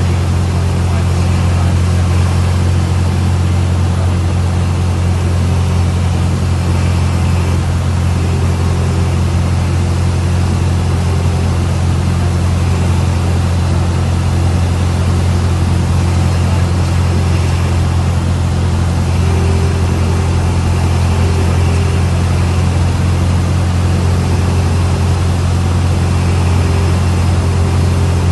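Cessna 172's piston engine and propeller droning steadily, heard inside the cockpit, throttled back for the landing approach.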